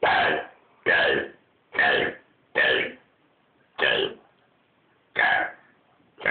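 A young girl burping the alphabet, one letter per burp: six loud burped letters about a second apart, with a seventh starting at the end.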